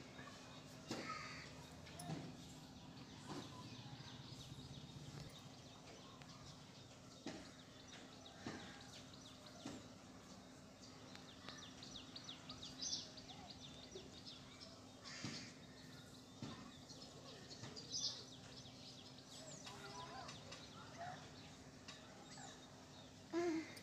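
Faint scattered clicks of fingernails pinching along strands of hair as nits are picked out, over a low steady hum. A few short high bird chirps come through now and then.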